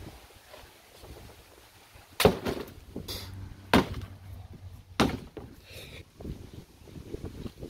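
Three loud whacks on a cardboard box, starting about two seconds in and roughly a second and a half apart.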